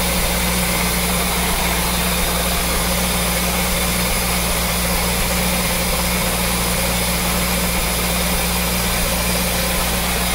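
The original Chevrolet small-block V8 of a 1976 Corvette, warmed up and idling steadily, running without misses.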